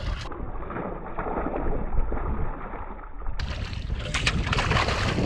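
Strong wind buffeting the microphone, with water noise around the boat. Irregular crackles come in near the end.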